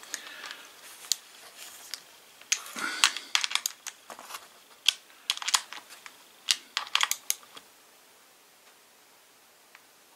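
Sharp metallic clicks and light clatter, some single and some in quick runs, as the bar nut of a small cordless mini chainsaw is tightened with a small socket wrench to tension the chain. The clicking stops about seven and a half seconds in.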